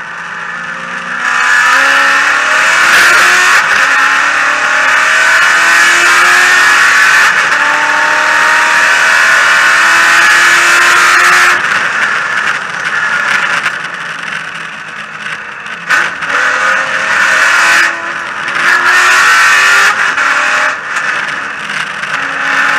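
Race car engine heard from inside the cockpit at speed: a long full-throttle pull rising in pitch, with an upshift about halfway through. Then the throttle lifts and the car is driven through corners with shorter bursts of acceleration.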